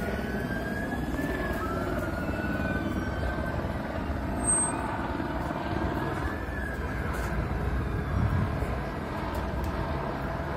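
Police car sirens wailing, two rising and falling tones overlapping, over a steady low rumble of traffic.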